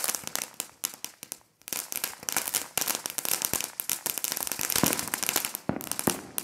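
Consumer fireworks cake firing on the ground: a dense stream of rapid crackling pops, with a brief lull about one and a half seconds in before it picks up again.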